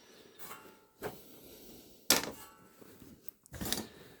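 Handling noises at a shoe patcher sewing machine: a few separate light knocks and clicks, the loudest about two seconds in and a short cluster near the end.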